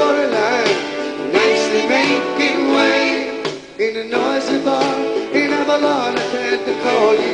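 Background music: a song with singing over guitar and a steady beat.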